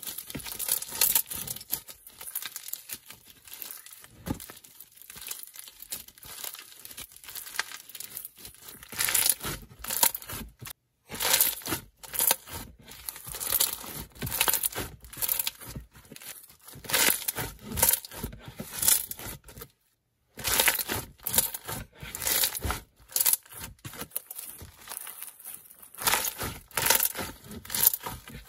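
Hands stretching, squeezing and pressing a semi-foam slime packed with foam beads, giving quick runs of crackly crunches and small bubble pops.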